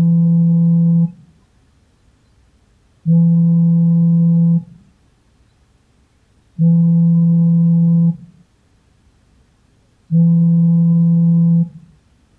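Samsung smartphone vibrating for an incoming call: a steady low buzz in pulses of about a second and a half, repeating every three and a half seconds, four pulses here with the first already underway.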